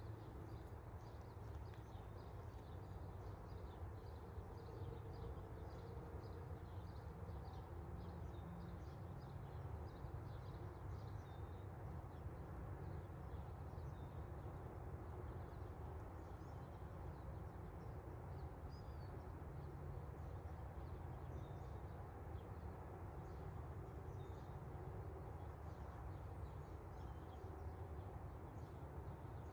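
Faint dawn outdoor ambience: small birds chirping on and off in short, high notes over a steady low rumble.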